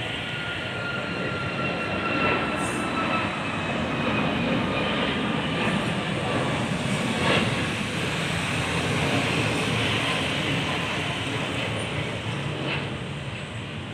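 Jet airliner engines at take-off power: a steady roar with a high whine that slowly falls in pitch, swelling through the middle and easing off near the end.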